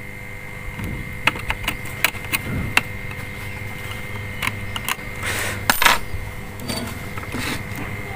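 Scattered light clicks and taps of small parts and a thin wire being handled in the open plastic case of a satellite receiver, with a few brief rustles. A faint steady high tone and low hum run underneath.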